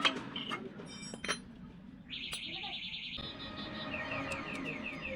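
A bike's electric horn or sounder giving a thin buzzing beep for about a second, then a regular run of quick falling chirps, about four a second, like an electronic alarm tone.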